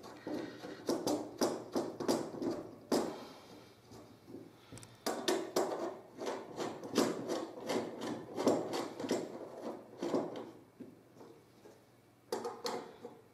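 Irregular clicks, taps and scrapes of metal parts being handled as a home-made folding grill is put together: steel tubes, rods and a wing nut knocking and rubbing. The clicks come in quick runs, with short lulls about four seconds in and again near the end.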